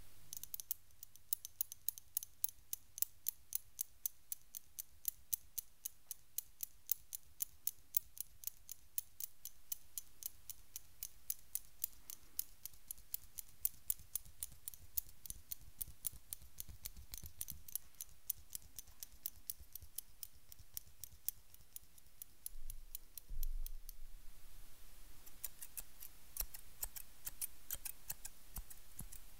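Barber's hair-cutting shears snipped open and shut close to a microphone: a fast, even run of crisp metal snips, several a second, getting denser near the end. A short low knock, likely handling, sounds about two-thirds of the way through.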